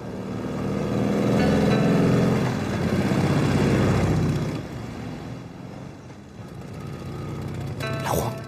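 A motor vehicle passes, its rumbling engine growing louder about a second in and fading away after about four and a half seconds.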